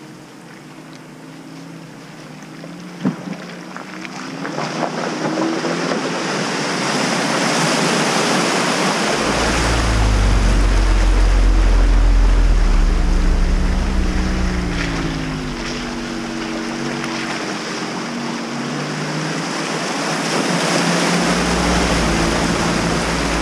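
Jeep Cherokee Trailhawk ploughing through a deep, muddy water hole, its engine revving up and down while water and mud slosh and splash around the wheels. It grows louder as it comes close, with a sharp knock about 3 seconds in and a deep rumble swelling twice.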